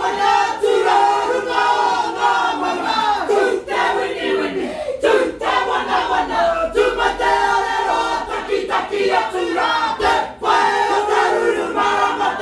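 A mixed group of men and women chanting a Māori haka together in loud unison, the shouted chant sliding in pitch from phrase to phrase. A few sharp hits cut through about five and ten seconds in.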